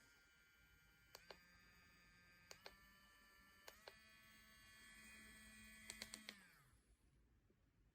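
Cordless electric nail drill's small motor running with a steady whine, its buttons clicking in pairs every second or so as the speed steps up a notch each time. About 6 s in several quick clicks come, then the motor winds down in pitch and stops.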